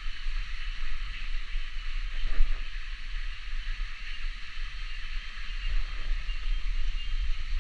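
Steady chorus of cicadas, a continuous high buzzing, with a low rumble underneath.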